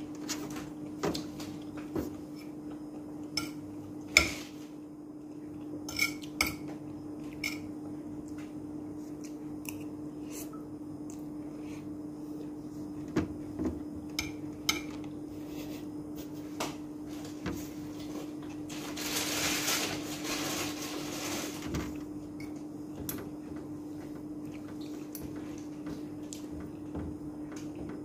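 Spoon and fork clinking and scraping against a plate of rice, in sharp clinks scattered a second or two apart. A few seconds of hiss-like noise come about two-thirds of the way through.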